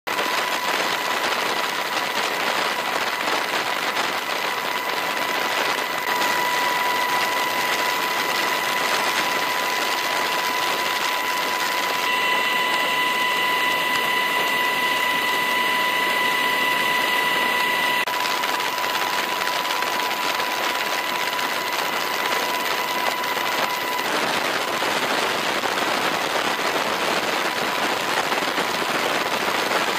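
Military helicopter in flight heard from inside the cabin: rotor and turbine noise as a dense, steady rush, with a steady high whine that drops out near the end.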